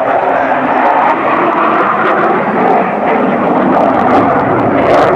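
Loud, steady jet roar from a McDonnell Douglas F-15E Strike Eagle's twin turbofan engines as the fighter flies its display with afterburners lit.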